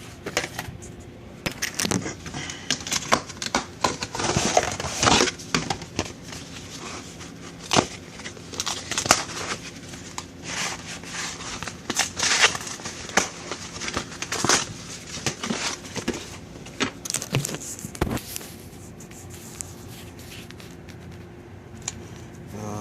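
A package being torn open by hand: tearing, crinkling and rustling of packaging with many sharp clicks and scrapes. It dies down in the last few seconds.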